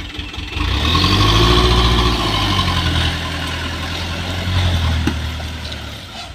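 Hino Dutro dump truck's diesel engine pulling hard under throttle on a muddy rutted track. It swells about half a second in, holds steady, and fades near the end as the truck moves away.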